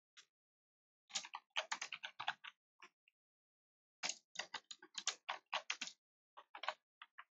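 Typing on a computer keyboard: quick runs of keystroke clicks, one about a second in and another about four seconds in, with a short pause between them and a few scattered keys near the end.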